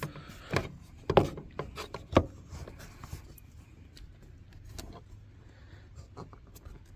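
A few sharp plastic clicks and knocks in the first couple of seconds as the electrical connectors are pushed onto a car's fuel pump and sensor, then faint handling noise.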